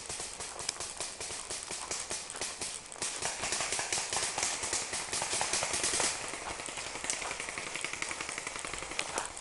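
Paintball markers firing in rapid runs of pops, mixed with the rustle and footfalls of running through dry leaf litter, with a louder rush of noise from about three to six seconds in.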